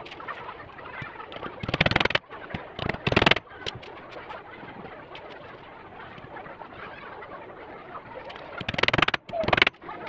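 Cordless drill driving screws into a wooden frame in short bursts: two about two seconds in and two more near the end, each a half-second run of rapid clicking.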